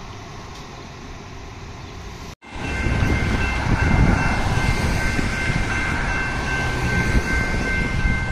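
A railroad grade-crossing warning bell starts ringing about two seconds in, over a loud low rumble, as the crossing signals activate for an approaching train.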